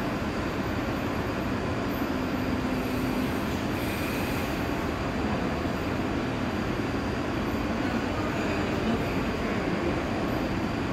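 Steady running noise of a Seoul Subway Line 3 electric train standing at the platform behind the screen doors, an even hum and hiss that does not rise or fall.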